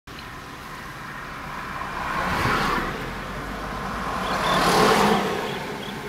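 Small surf waves washing up on a sandy beach: a steady rushing noise that swells twice, the second swell louder, about two and a half and five seconds in.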